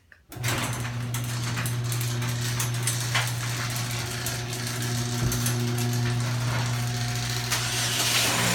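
LiftMaster 1/3 horsepower chain-drive garage door opener starting up about half a second in and running steadily as it opens the door: a motor hum under the rattle of the chain.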